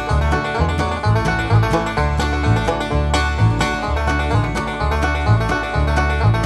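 Background music: an upbeat country-style tune with plucked strings and a steady bass beat.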